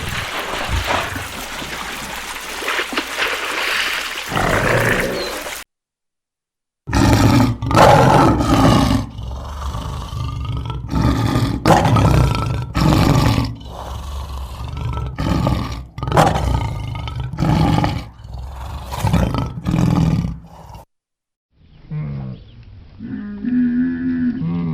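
A lion roaring: a run of loud, deep calls about a second apart. It is set between two short silent gaps, with a different animal's sound before it and a pitched animal call after it.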